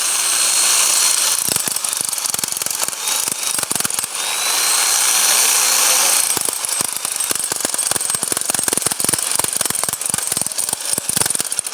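Bosch hammer drill running in hammer mode: a high motor whine under a rapid rattle of impacts, turning more broken and uneven after about six seconds.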